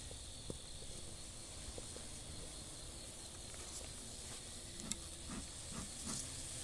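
Faint, steady high-pitched hiss of outdoor background, with a few light clicks and taps.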